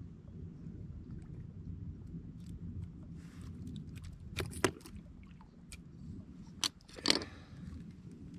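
Fishing pliers and a knife handled on a rock ledge while unhooking a gar: scattered sharp metallic clicks and knocks, the loudest a pair about four and a half seconds in and another pair near seven seconds, over a low steady rumble.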